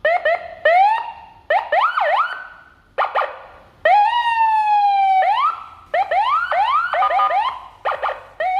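Senken CJB100BD electronic vehicle siren sounding a string of short tones with pauses between: quick rising whoops and chirps, and one longer tone about four seconds in that slowly falls in pitch.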